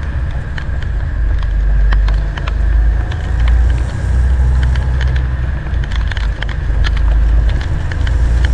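Semi truck driving on a wet road, heard from inside the cab: a steady low rumble of engine and tyres, with scattered light ticks of rain hitting the windshield.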